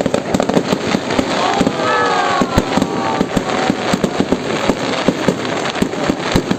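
Fireworks display going off: a steady string of bangs and crackling pops, many per second.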